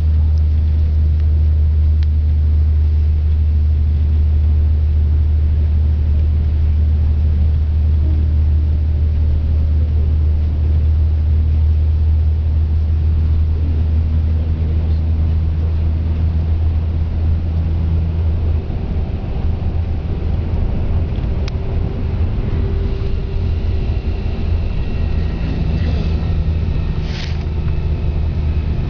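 Coach bus engine and road noise heard from inside the passenger cabin: a loud, steady low drone that turns rougher and less even about two-thirds of the way through.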